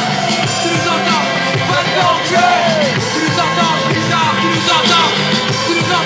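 Live band music playing loudly through a concert PA, recorded from within the crowd, with a steady beat and voices yelling over it.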